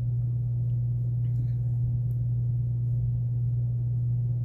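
A steady low hum at one unchanging pitch, with a few faint ticks about a second and a half and two seconds in.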